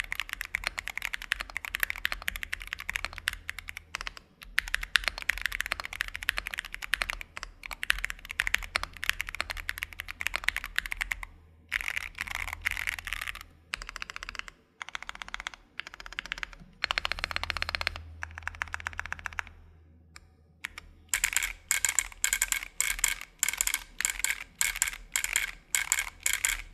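Typing on a custom MM Studio Class60 mechanical keyboard fitted with TU switches: fast runs of keystroke clacks broken by short pauses. Near the end the typing slows to evenly spaced strokes of about three a second.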